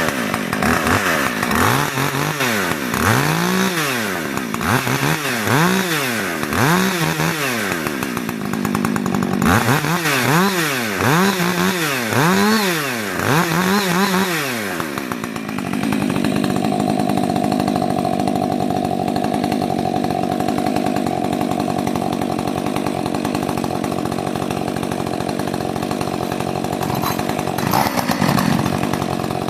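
Rebuilt Husqvarna 562 XP two-stroke chainsaw warming up: the throttle is blipped over and over, the engine revving up and dropping back about once a second, then it settles into a steady run from about halfway through.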